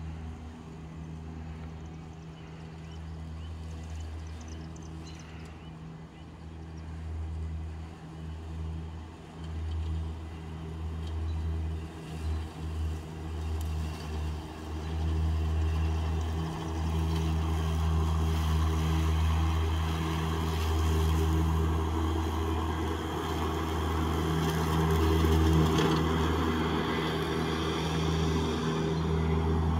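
Battery-electric EGO zero-turn mower running with its blades cutting grass: a steady electric motor hum with a whir on top, growing louder as the mower comes closer over the second half.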